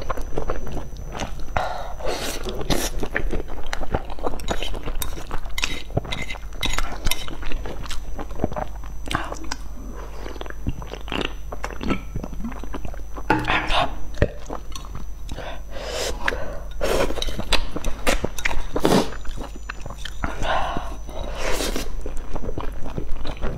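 Close-miked slurping and chewing of saucy stir-fried instant noodles, full of wet mouth clicks and smacks. About halfway through there is a brief pause to drink from a small bottle.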